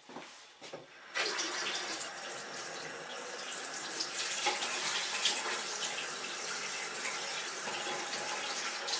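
Water tap turned on about a second in and running steadily while hands are washed under it, rinsing off lead residue.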